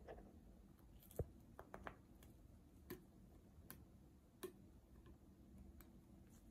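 Faint, irregular clicks and ticks of a plastic pop tube being twisted and bent in the hands, with one sharper click about a second in.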